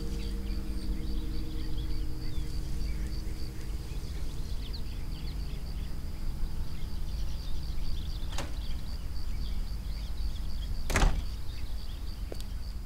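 A steady low rumble under a faint, rapid high pulsing, with the sustained notes of a score fading out in the first few seconds. A short sharp click comes about eight seconds in, then a louder single thud of a door about eleven seconds in.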